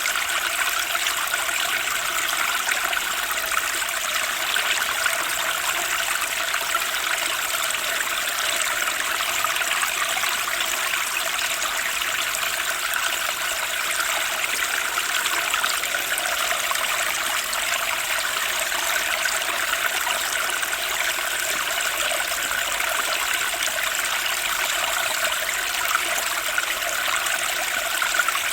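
Fast, turbulent stream water rushing and splashing steadily over rocks, with no pauses or changes.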